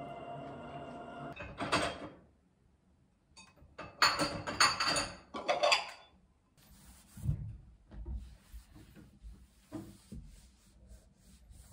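Ceramic bowls and dishes clattering and clinking as they are set into a dishwasher rack, loudest in a run of sharp knocks between about four and six seconds in. Before that a stretch of music stops after a second and a half, and afterwards come quieter rubbing, small knocks and a dull thud.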